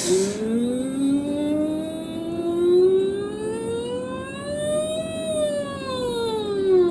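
A person's voice doing a vocal siren exercise for resonance practice: one unbroken hum-like glide that rises slowly from a low note to its highest about five seconds in, then slides back down.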